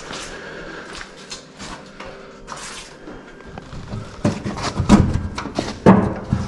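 Clattering knocks and clinks of hard objects in a confined, echoing space, sparse at first and coming thicker and louder in the second half.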